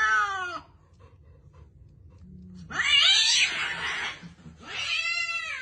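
Domestic cat meowing: a long, drawn-out meow falling in pitch ends about half a second in. About three seconds in comes a louder, harsher yowl, and near the end another long meow falling in pitch.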